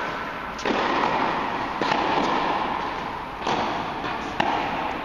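Tennis rally: a tennis ball struck by rackets and bouncing on the court, four sharp hits spread over about four seconds, echoing in a large indoor tennis hall.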